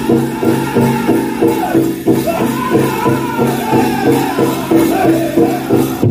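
Powwow drum group singing a chicken dance song: several voices over a steady, even beat on a big drum.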